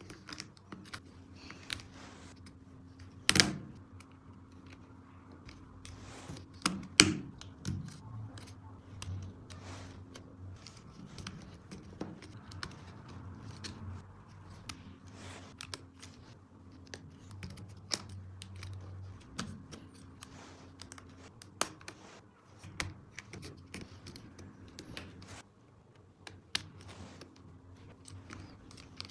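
Plastic toy track pieces clicking and clattering as they are handled, with two louder knocks about three and seven seconds in. A faint hum comes and goes underneath.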